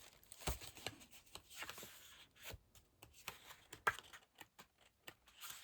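Sheets of patterned craft paper being handled and turned over: faint rustles and soft taps, with a slightly sharper tap about four seconds in.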